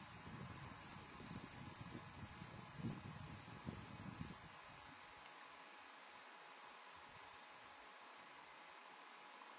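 Insects trilling in a steady, high-pitched, fast-pulsing chorus. A low rumble under it fades out about halfway through.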